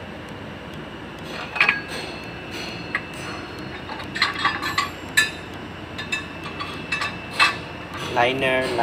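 Irregular metal clinks and knocks of hand tools striking the steel parts of a Volvo truck engine block during cylinder liner removal, some eight or nine strikes at uneven spacing, a few leaving a short ring.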